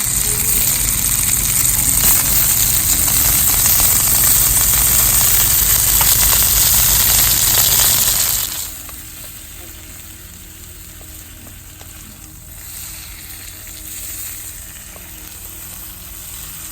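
Chicken sizzling on a hot cooking stone, a loud steady hiss that drops suddenly to a much quieter sizzle about eight and a half seconds in.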